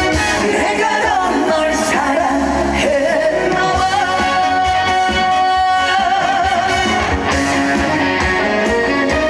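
Instrumental break of a trot song played through a concert sound system: a gliding melodic lead line over steady band backing.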